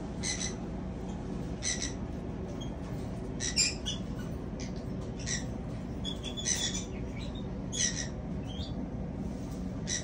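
Cockatiels in a nest box giving short, harsh calls about once a second, at irregular intervals, over a steady low hum.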